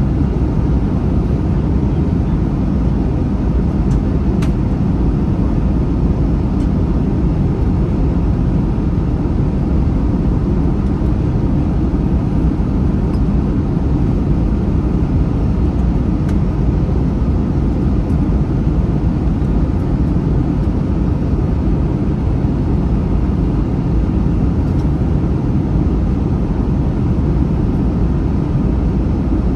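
Airbus A321 cabin noise: a steady, loud rumble of jet engines and airflow, even throughout.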